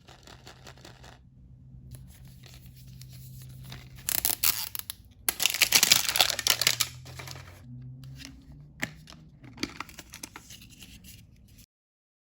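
An L.O.L. Surprise blind bag's plastic wrapper being torn open by hand, crinkling as it is handled. The loudest tearing comes about four to seven seconds in. The sound cuts off suddenly near the end.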